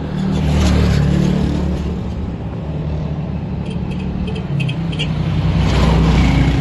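Motor vehicle engines running with a steady low rumble, swelling about half a second in and again near the end as traffic passes, with a few short high chirps in the middle.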